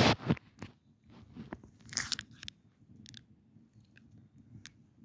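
Crunchy chewing close to the microphone: a loud crunch right at the start, another round of crunching about two seconds in, then scattered small crunches and clicks.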